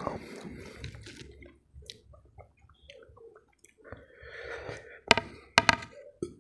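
Chewing and wet squishing of rice mixed by hand, then thick lentil dal poured from a glass bowl onto the rice. Near the end, three sharp clinks of the glass bowl.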